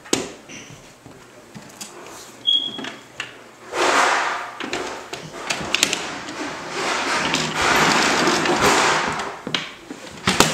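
Plastic toy push vacuum handled and pushed over a wooden floor and rug: a knock as it is lifted, then a noisy rolling stretch of about five seconds starting about four seconds in, and another knock near the end.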